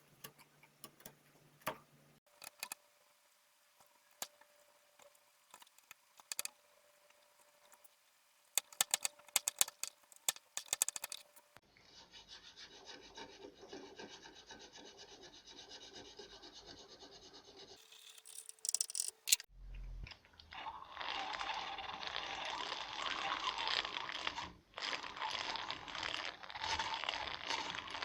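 Hand woodworking on a setar: scattered light taps and clicks at first, then from about two-thirds of the way in a steady, continuous rasping of a hand tool scraping wood.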